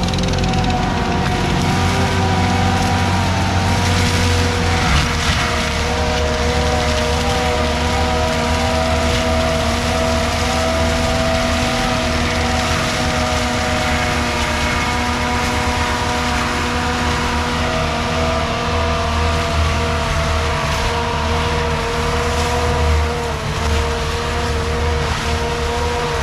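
Skid steer running a forestry mulcher: a steady, loud drone with several held whining tones that waver slightly.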